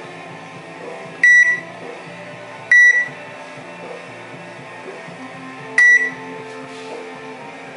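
Salvaged microwave oven control board's beeper giving three short beeps of one high tone, the first two about a second and a half apart and the third about three seconds after that, over background music.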